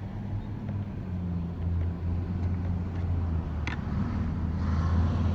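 Steady low hum of a running engine or motor, with one sharp metallic click about three and a half seconds in and a short scrape near the end, as a screwdriver works tight screws on a scrap electric motor.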